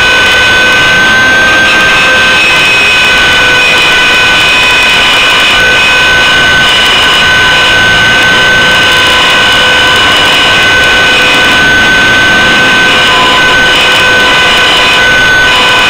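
Align T-Rex 600 CF radio-controlled helicopter in flight, heard from a camera mounted on board: a loud, steady whine of its drivetrain and rotor over rushing air, its pitch holding almost constant with only slight shifts.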